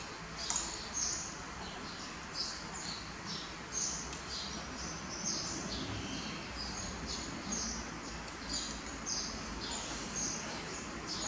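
Small birds chirping: a steady stream of short, high chirps, many dropping in pitch, over a low background noise.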